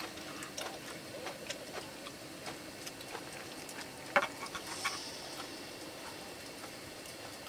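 Light, irregular clicks and taps, with one sharper click about four seconds in, over a faint steady hiss.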